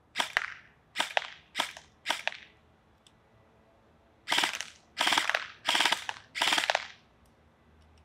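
Krytac Trident airsoft electric rifle (AEG, version 2 gearbox) firing in full-auto bursts, each a fast rattle of shots. There are four short bursts in the first two and a half seconds, then four longer bursts about two-thirds of a second apart.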